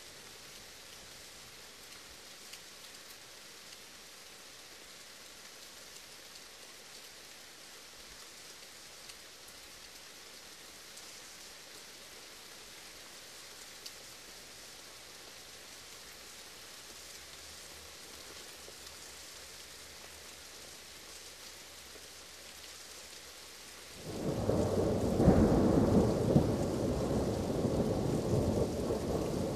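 Steady rain falling. Near the end, a loud roll of thunder breaks in suddenly and keeps rumbling.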